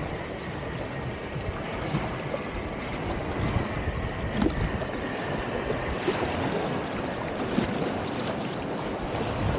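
Whitewater rushing and splashing around a kayak, with a few sharp splashes, getting louder as the boat moves from calm water into the rapids.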